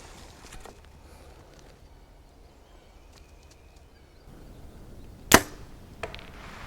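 A bow shot: after a few quiet seconds, one sharp, loud snap of the bowstring releasing an arrow about five seconds in, followed by a fainter knock less than a second later.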